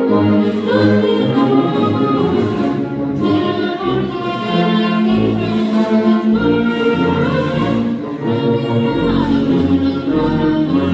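Music: a choir of voices singing over an orchestra with brass.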